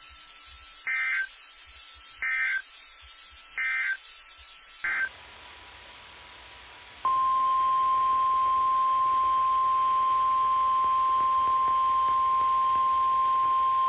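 Emergency Alert System data tones: three short warbling data bursts about a second and a half apart, the end-of-message code that closes a NOAA Weather Radio warning. After a cut comes one more short burst, and about seven seconds in the steady 1050 Hz NOAA Weather Radio warning alarm tone starts and holds.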